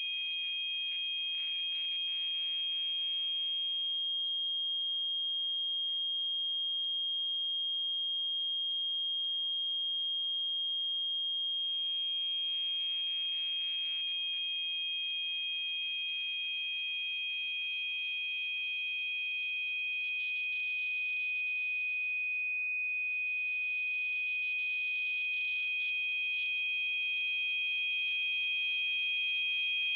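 Two steady, high-pitched pure tones for tinnitus masking, with a faint hiss at the same pitch. The lower of the two tones drops out about four seconds in and comes back about twelve seconds in.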